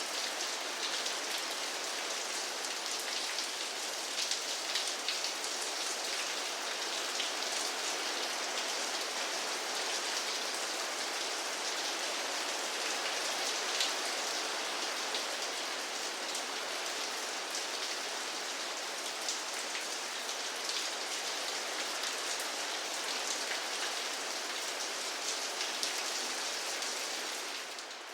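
Steady rain falling: an even hiss with a dense patter of individual drops. It softens a little near the end.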